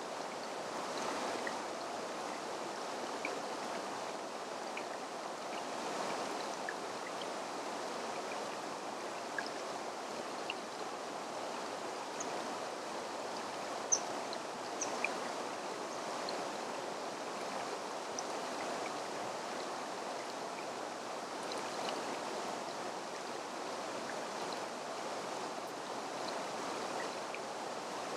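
Steady rushing of a mountain stream, an even hiss that doesn't change, with a few faint small ticks near the middle.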